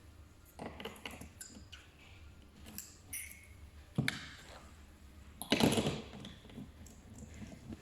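Scattered small clicks and taps of tools being handled, with a sharp knock about four seconds in and a louder half-second scraping rustle near six seconds.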